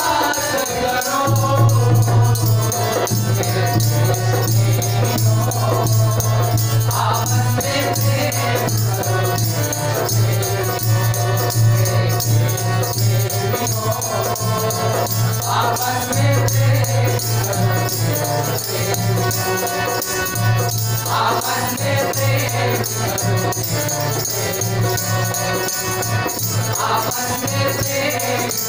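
A group of boys singing a patriotic song together in chorus, amplified through a PA, accompanied by a harmonium and a rattling hand percussion instrument keeping the beat.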